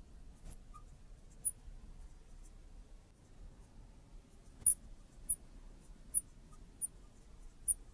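Marker writing on a glass lightboard: the tip gives about seven short, high squeaks and ticks at uneven intervals, the sharpest one a little past halfway.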